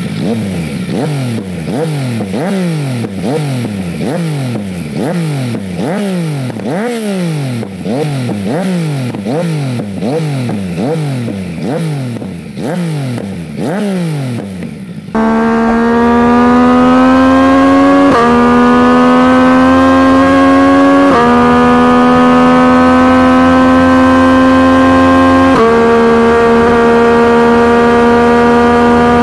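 Three-cylinder motorcycle engine being blipped over and over, about one quick rise and fall in revs a little more than once a second. About halfway through it cuts abruptly to the engine pulling hard under acceleration, its pitch climbing and then dropping three times as it shifts up through the gears.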